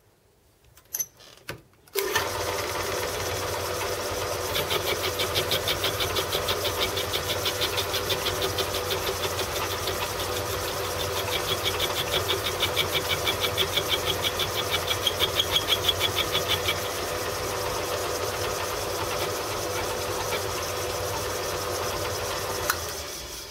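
Electric motor and belt-and-countershaft drive of a home-built Gingery machine tool switched on with a couple of clicks, then running with a steady hum and, in two stretches, a rapid rhythmic beat, before winding down near the end. The small pulley on the countershaft has worked loose on its shaft.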